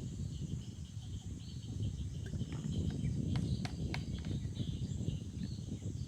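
Insects chirping in short repeated pulses over a steady low rumble, with a few sharp clicks about three and a half to four seconds in.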